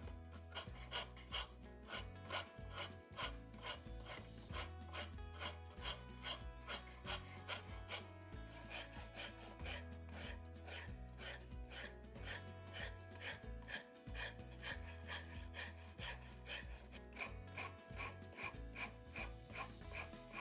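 Wood rasp filing a hickory axe handle in repeated push strokes, about two a second, over faint background music.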